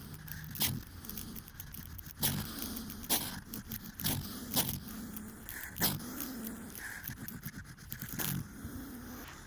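Hedgehog sneezing: about six short, sharp sneezes at uneven gaps of one to two seconds.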